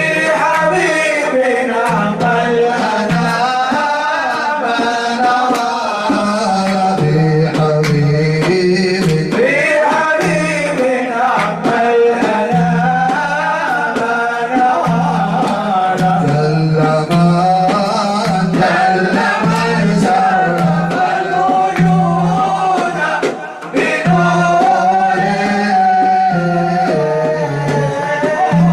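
A male voice sings an Arabic nasheed in long, ornamented melodic lines over a steady low backing tone that drops out and returns.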